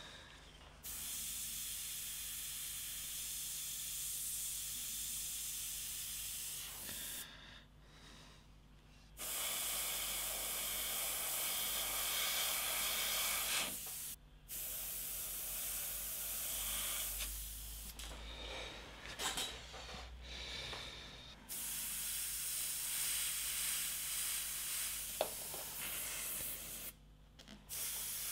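Gravity-feed airbrush spraying paint in long passes, a steady airy hiss that stops and restarts several times as the trigger is released and pulled again between passes.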